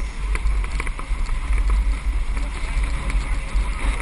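Outdoor ambience dominated by a steady low wind rumble on the microphone, with scattered light clicks and a faint murmur of voices.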